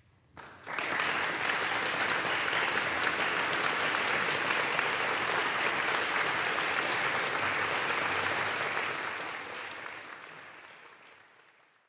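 Audience applauding, breaking out suddenly about half a second in, holding steady, then fading away over the last few seconds.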